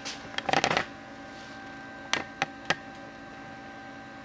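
Computer mouse clicking in the CNC router's control software: a quick clatter of clicks about half a second in, then three sharp single clicks about a third of a second apart, over a steady electrical hum.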